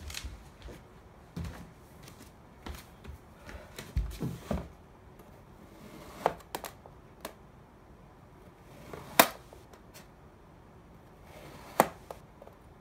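A metal knife blade slicing down through a block of kinetic sand, several cuts: a soft grainy hiss as the blade sinks in, ending in a sharp click as it meets the hard surface beneath. Lighter taps and a few dull bumps fall between the cuts.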